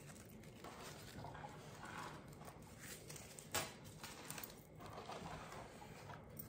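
Faint rustling of artificial flower stems and leaves handled and tucked in by hand, with a single light knock about three and a half seconds in.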